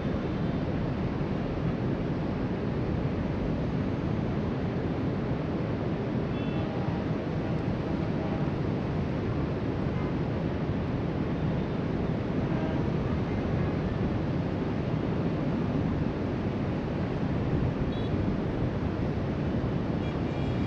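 Steady wash of surf breaking along the shoreline, heard from high above, with wind rumbling on the microphone. It holds even throughout, with no distinct events.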